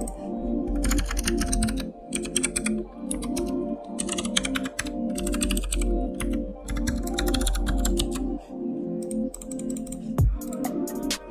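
Typing on a computer keyboard in short bursts of rapid keystrokes, over background music with a steady repeating low pattern. A low thump comes near the end.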